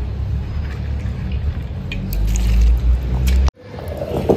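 Granite stone roller of an ammi grinding soaked moong dal on the flat stone: a low rumble with wet squishing, cutting off suddenly about three and a half seconds in.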